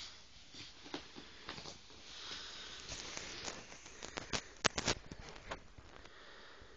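Staffordshire Bull Terrier puppy sniffing and scrabbling at its fabric dog bed, with scattered light taps and a quick run of sharp taps about four to five seconds in.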